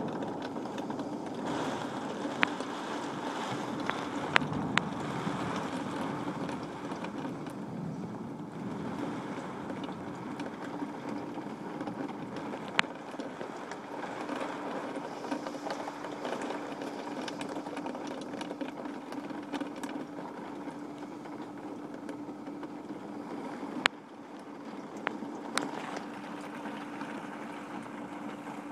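Heavy rain of a hailstorm pouring steadily, with a steady low hum underneath and a few sharp clicks of hailstones striking, scattered through it.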